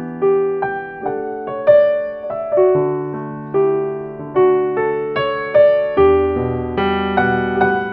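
Background music: a slow, gentle keyboard tune, each note struck and fading, about one every half second to a second, over held lower notes.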